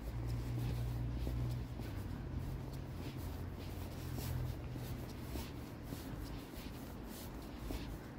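Footsteps on paving stones at a walking pace, with the padded coat swishing against itself at each stride, over a low steady hum.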